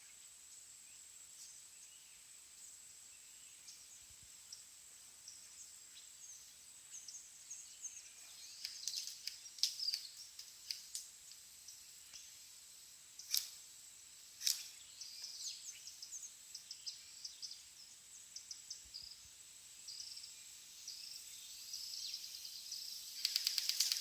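Outdoor ambience: a steady high-pitched insect drone with scattered bird chirps, two sharp clicks about a second apart near the middle, and a loud, fast, even pulsing buzz starting near the end.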